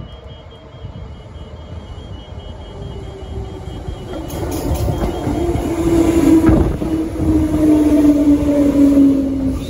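Transperth electric suburban train approaching and running past close by, its rumble on the rails growing louder until about six seconds in. Over the last few seconds a whine falls slowly in pitch.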